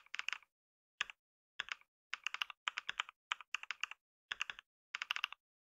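Computer keyboard typing used as a sound effect for text being typed out on screen: quick keystroke clicks in short bursts with brief pauses, stopping about five seconds in.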